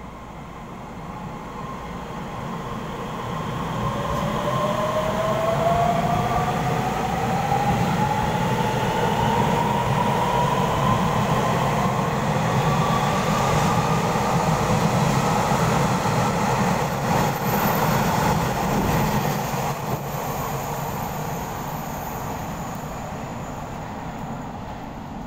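Taiwan Railways EMU3000 electric multiple unit pulling out of an underground station: the rumble of the cars going past, with a motor whine rising steadily in pitch as the train accelerates. The sound fades as the train leaves into the tunnel near the end.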